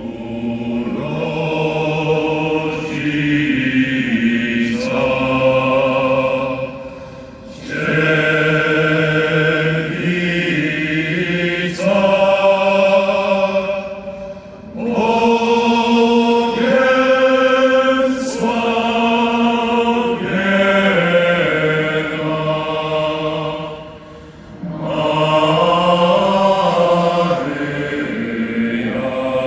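A large choir singing a slow hymn in long held phrases, with three short breaks between phrases.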